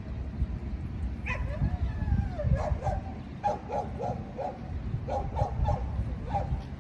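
Geese calling: one call falling in pitch, then a run of short, pitched calls in quick clusters, over a low rumble.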